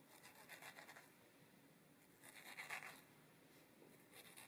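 Faint scraping of a paring knife slicing the skin off a ripe mango, in three strokes, the middle one the loudest.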